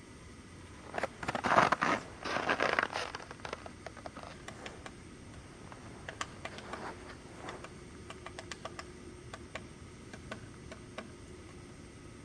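Woodpecker pecking at wood: a dense flurry of sharp taps about a second in, then scattered single taps.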